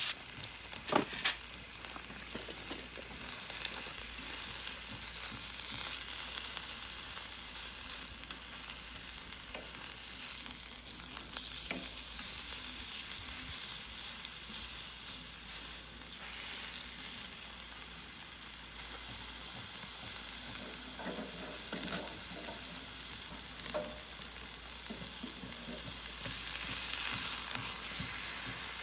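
Beef steak sizzling steadily in hot oil in a frying pan, with a few sharp clicks about a second in and again near the middle.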